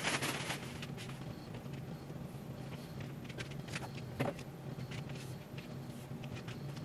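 Fabric curtains on a rod being handled and adjusted: faint rustling with a few light taps, over a steady low hum.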